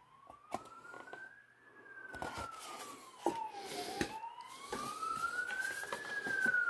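A siren wailing, its pitch rising and falling slowly twice, over short rustles and clicks of cardboard packaging being unfolded by hand.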